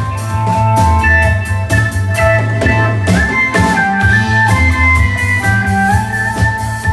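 A band playing: electric guitar over a drum kit and bass, with a melody line sliding between held notes and steady drum beats.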